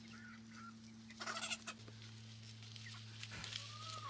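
Domestic chickens clucking in short scattered calls, with a brief rustle about a second in over a steady low hum.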